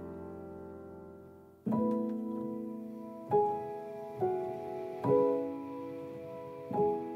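Background music on piano: a held chord fades away, and from about one and a half seconds in new chords are struck roughly once a second.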